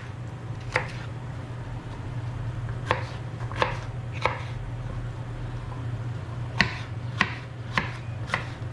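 Kitchen knife slicing vegetables on a cutting board: about eight separate strokes, roughly half a second to a second apart, with a pause of about two seconds in the middle.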